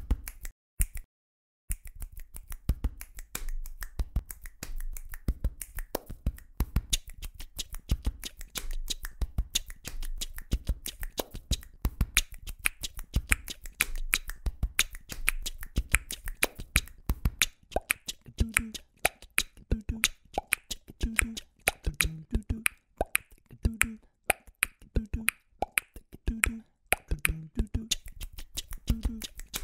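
Beatboxing: a dense, fast rhythm of sharp mouth clicks over a low bass pulse, starting about two seconds in. Later a short low note repeats about once a second under the beat.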